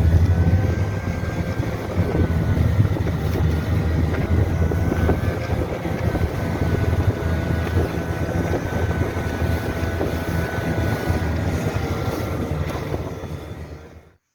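A motor vehicle's engine running at a steady speed while under way, with wind on the microphone; it cuts off abruptly near the end.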